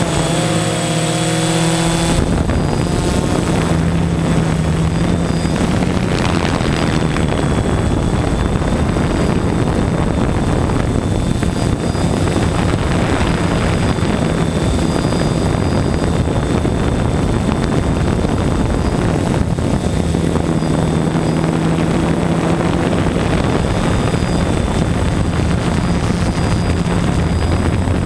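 Multirotor drone's motors and propellers running steadily, a hum with a thin high whine over it. The drone flies low and then hovers.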